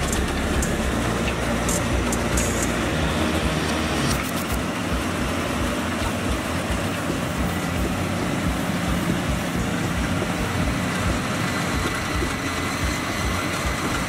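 Yanmar tracked rice combine harvester running steadily as it cuts rice, giving a continuous, even mechanical din.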